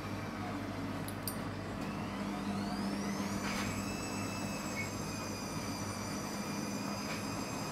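Indesit front-loading washing machine's drum motor whining as the drum speeds up for an interim spin. The whine rises in pitch for about two seconds and then holds steady over a low hum.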